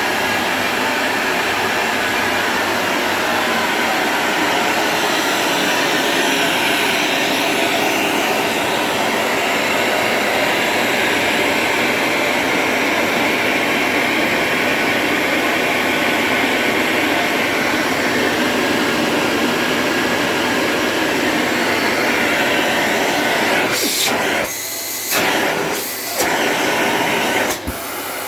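Samsung Anti Tangle vacuum cleaner with a 2000 W motor running steadily, a loud even rush of air and motor whine. Near the end the sound drops and comes back several times.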